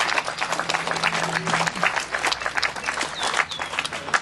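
A small crowd applauding, with many hands clapping densely and steadily.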